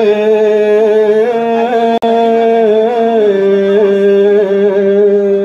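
Music: a steady low drone under a long-held melodic line that bends slowly in pitch, with a brief sharp click about two seconds in.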